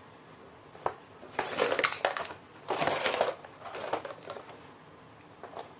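Plastic toys being handled and rummaged through: a sharp click, then a few bursts of rustling and rattling.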